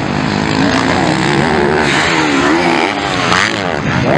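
Motocross bike engines revving on the race track, several at once, their pitch rising and falling as the riders open and close the throttle.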